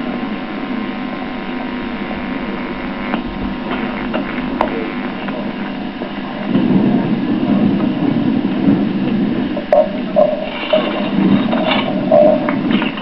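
Steady electrical hum and hiss of an old home-video recording, growing louder and rougher about halfway through, with a few faint short tones near the end.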